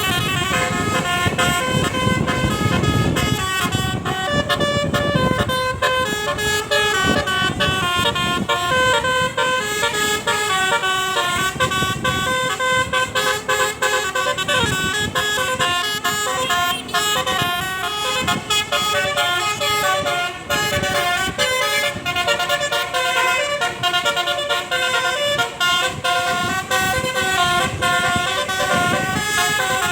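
Indonesian bus 'telolet' multi-tone air horns playing quick melodies, with the pitch stepping up and down continuously, over a low rumble.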